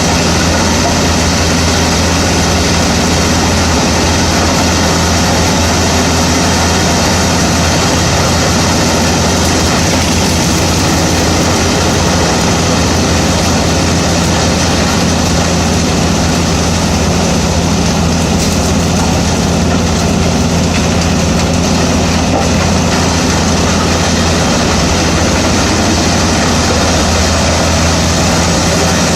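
Pezzolato PTH 900 M drum wood chipper running on its IVECO C10ENTX diesel engine: a loud, steady mechanical drone with a constant low hum, unchanging throughout.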